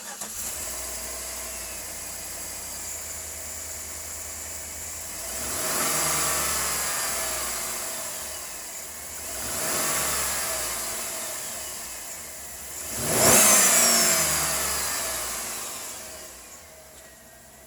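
2011 Chevrolet Avalanche LTZ's V8 engine idling just after starting, then revved three times about four seconds apart, the third rev the highest, each falling back to idle before it settles to a quieter idle near the end.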